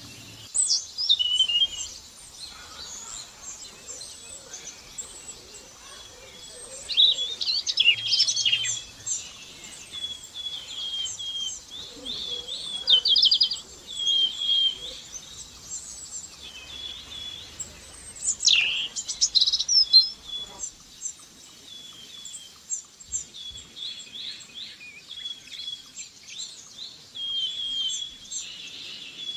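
Several small songbirds singing and chirping, with many short, high-pitched, overlapping calls and quick trills.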